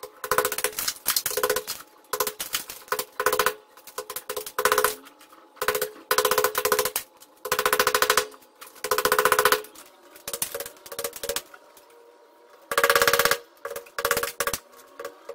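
Electric hammer drill boring into the wall: a whining motor with a rapid hammering clatter, run in many short bursts of under a second each with brief pauses and one longer pause about twelve seconds in.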